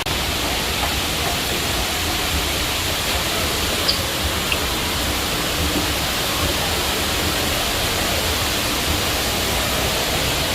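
Indoor shopping-mall waterfall: water falling in a steady, unbroken rush.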